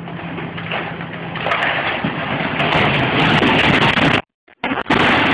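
Fire-gutted building front and canopy collapsing under an excavator: a growing crash of breaking wood, brick and debris with many sharp cracks, loud from about one and a half seconds in. The excavator engine runs steadily underneath at first, and the sound cuts out for half a second about four seconds in.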